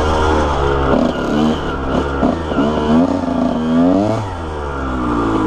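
2001 Honda CR125R's 125cc single-cylinder two-stroke engine revving up and down as the throttle is worked at low speed, its pitch rising and falling several times, with the biggest climb and drop about four seconds in.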